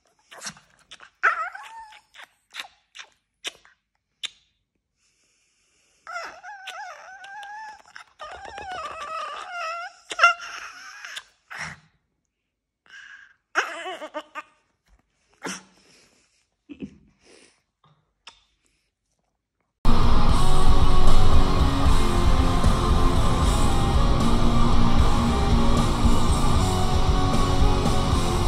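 A small dog whining in short high, wavering cries among scattered soft clicks and smacks, then loud background music that comes in suddenly about two-thirds of the way through.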